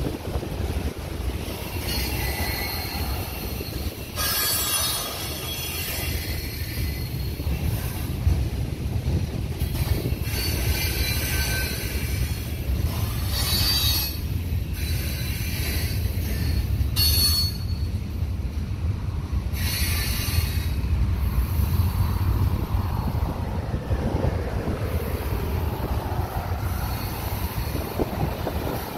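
Freight cars rolling past over a steel girder bridge: a steady low rumble, with several bursts of high-pitched wheel squeal coming and going.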